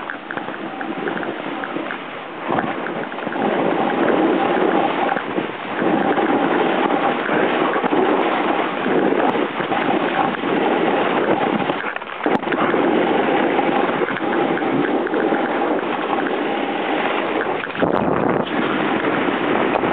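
A snowboard sliding and carving through powder snow: a continuous rushing scrape that swells and eases with the turns, dipping briefly about twelve seconds in. Wind rushes over the microphone.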